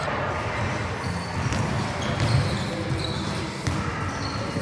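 Basketball bouncing on a hardwood gym floor, with short high sneaker squeaks and players' voices in the background.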